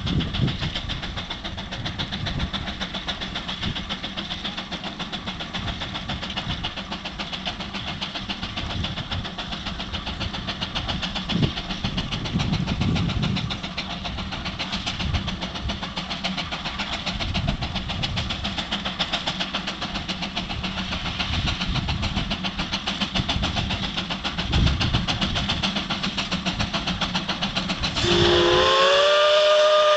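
Steam traction engine pulling a plow under load, its exhaust chuffing in a rapid, even beat. About two seconds before the end its steam whistle blows, sliding up briefly and then holding a steady multi-note tone, the loudest sound here.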